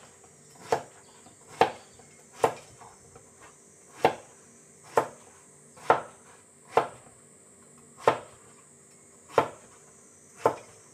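Kitchen knife roll-cutting a peeled luffa into chunks on an end-grain wooden cutting board, the gourd turned between cuts. Each cut ends in a single sharp knock of the blade on the board, about once a second.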